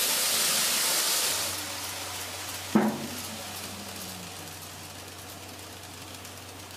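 Model trains running on layout track, a steady hissing rolling noise that fades away after about a second, leaving a low steady hum. A single sharp knock about three seconds in.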